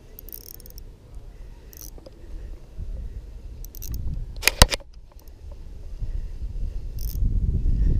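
Ultralight spinning reel being cranked, with faint mechanical ticks and a sharp double click a little past halfway. A low rumble builds near the end.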